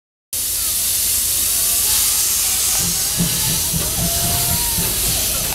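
Steam locomotive CT273 blowing off steam from its open cylinder drain cocks: a loud, steady hiss that starts abruptly just after the beginning.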